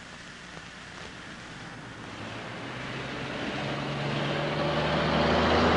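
A car approaching, its engine hum and road noise growing steadily louder as it nears.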